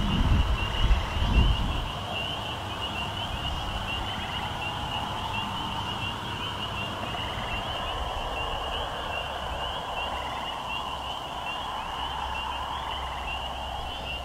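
Insects chirring steadily in a high, fast-pulsed drone, with wind rumbling on the microphone for the first two seconds.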